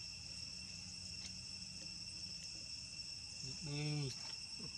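A steady insect chorus of crickets or cicadas, a constant high buzzing in several bands. About three and a half seconds in, a short low-pitched voice call of about half a second rises over it, the loudest sound.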